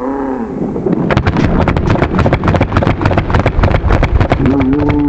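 Several paintball markers firing at once off the break, a rapid, overlapping stream of sharp pops starting about a second in. A short shout comes at the start and another near the end.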